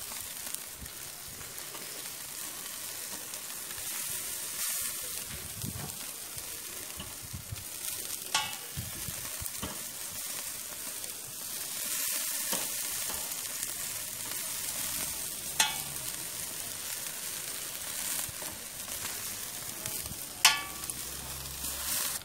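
Ostrich sausages and chicken kebabs sizzling steadily on a grill grid over charcoal, with a few sharp clicks.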